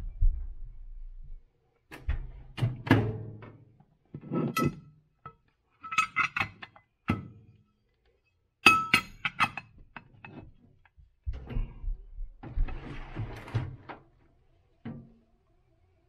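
Metal soft-plastic bait molds being handled and set down on a workbench: a series of separate thunks and metallic clinks, a few ringing briefly.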